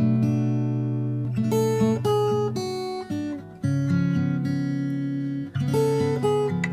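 Instrumental song intro on acoustic guitar: sustained chords that change every second or two, with no vocals.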